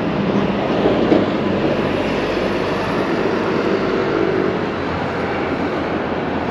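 A Docklands Light Railway train running on the elevated track, a steady rail noise with a faint humming tone about halfway through.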